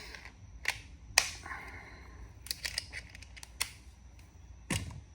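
Hand tools being handled: a series of sharp clicks and knocks, with some rustling, as screwdrivers and nut drivers are put down and taken out of a tool pouch.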